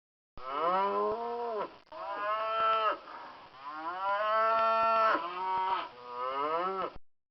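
Cows mooing: four or five long moos one after another, each dropping in pitch at its end.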